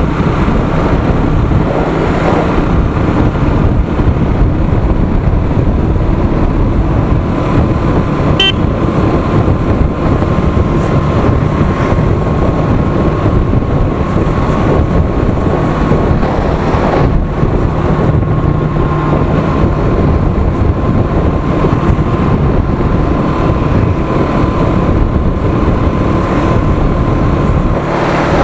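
Motorcycle running at a steady cruising speed on the open road, with loud wind rush over the microphone.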